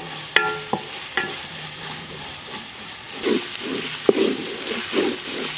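Garlic-ginger paste, shallots, green chillies and curry leaves sizzling in hot coconut oil in an aluminium pan as they fry to brown. A spoon clinks against the pan a couple of times near the start, then stirs and scrapes in a run of strokes in the second half.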